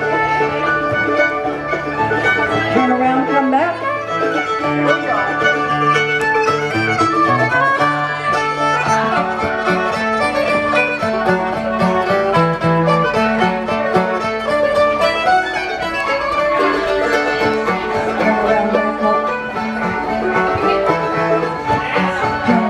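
Live string band playing a dance tune, the fiddle carrying the melody over banjo and guitar.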